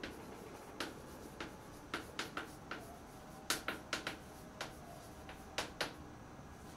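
Chalk writing on a blackboard: a string of sharp, irregular taps and short scratches as each letter is stroked, the loudest about halfway through.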